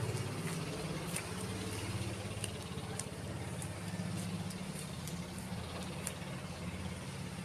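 Motor vehicle engine running steadily at low speed, a low hum with road and wind noise and a few faint clicks.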